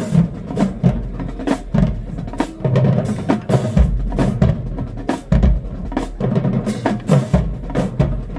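Marching band drumline playing a loud, driving cadence of rapid snare-drum strikes over bass-drum hits.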